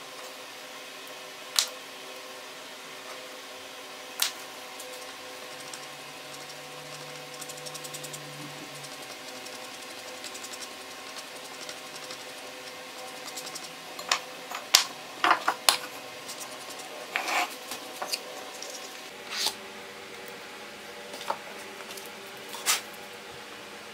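Handling sounds on a workbench while paper is glued and pressed by hand: scattered sharp taps and clicks and short paper rustles, busiest in the second half. Under them runs a steady background hum.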